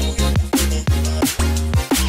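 Electronic music with heavy bass and a steady drum beat, each hit carrying a quick falling sweep.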